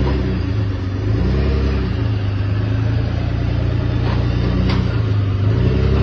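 Lifted Dodge Ram pickup's engine revving under load as the truck climbs steep loading ramps. The revs rise in surges, about a second in and again near the end, and are held high in between.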